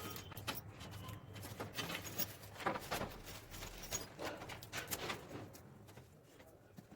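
Irregular clicks and knocks of hand tools working the aluminium cores of an armoured cable as the cores are cut to length one by one.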